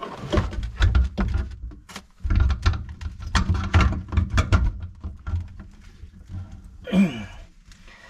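Garbage disposal being turned and locked by hand onto its sink mounting ring: a run of clicks, knocks and scraping of the housing against the metal ring, with bumps from handling the unit. A short falling sound comes about seven seconds in.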